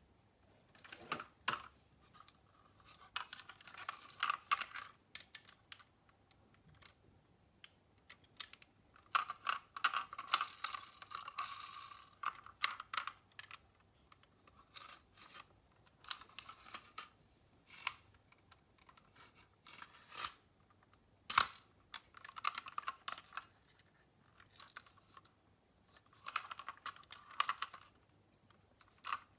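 Miniature toy cars rattling and clicking as they roll and knock on a hard surface, in bursts of a second or two, with one sharp click past the middle.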